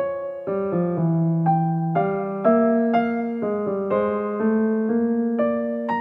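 Background music: a gentle solo piano tune, with notes and chords struck about twice a second and each fading after it is played.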